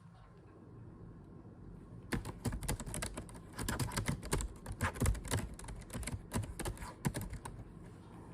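Rapid typing on a keyboard: a dense run of quick key clicks that starts about two seconds in and stops near the end, over a low steady background.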